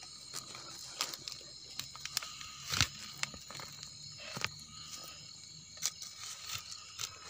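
Crickets chirring steadily at night, with a handful of short footsteps and rustles in the leaf litter and soil; the loudest comes about three seconds in.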